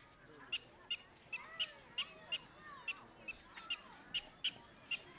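Prairie dog giving a rapid string of short, sharp chirps, about two or three a second. These are alarm calls, which the owner puts down to the prairie dog knowing that he owns a dog.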